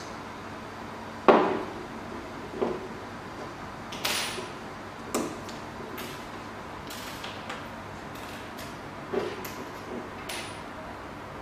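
Plastic and metal parts of a 3D printer extruder being handled: the stepper motor and its plastic lever arm. A sharp knock about a second in, then scattered lighter clicks and taps as the parts are pulled apart and set down, over a steady background hiss.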